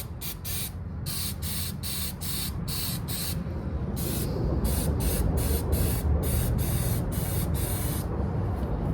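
Aerosol can of undercoating spraying in short hissing bursts, about two a second, stopping briefly near the end. A low rumble runs underneath.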